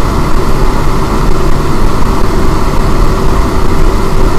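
Electric fan running flat out: a loud, steady motor drone with one constant tone over rushing air.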